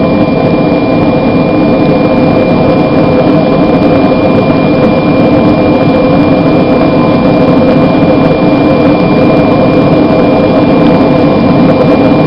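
Propane forge burner running at full flame: a loud, steady rushing noise with a faint high steady tone.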